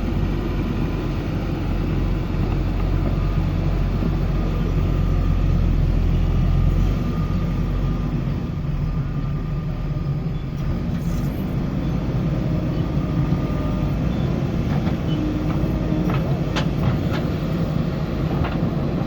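JCB backhoe loader's diesel engine running, a steady deep rumble that eases a little about seven seconds in.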